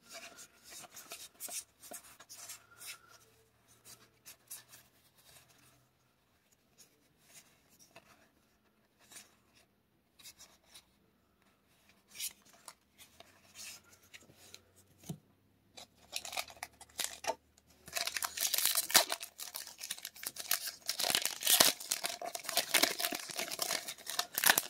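Trading cards being handled with faint scattered rustles and clicks, then, about three quarters of the way in, a Magic: The Gathering booster pack's foil wrapper being torn open with loud, continuous crinkling and ripping.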